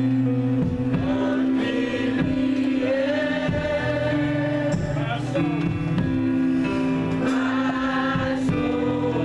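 Gospel music: sung vocals gliding over steady, sustained chords.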